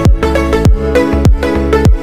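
Background electronic dance music: a deep kick drum that drops in pitch on a steady beat, a little under two per second, under sustained synth chords and a melody.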